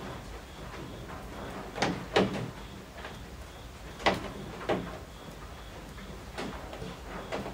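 Night rain with drops from the eaves striking a hard surface, making irregular sharp knocks over a steady patter, about six in a few seconds.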